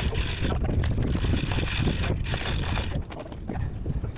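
Wind buffeting the microphone as a steady low rumble, with several bursts of hissing, rustling noise.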